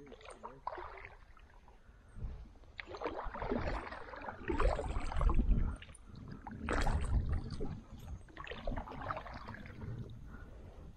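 Kayak paddle strokes: the blade dipping and splashing in the water several times, with water sloshing and dripping between strokes.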